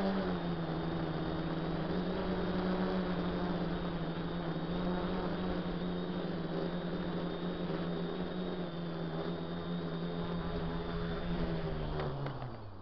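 DJI F450 quadcopter's brushless motors and propellers humming steadily in flight, heard close up from the drone's own camera. Near the end the pitch drops and the hum dies away as it lands, with a short knock at touchdown.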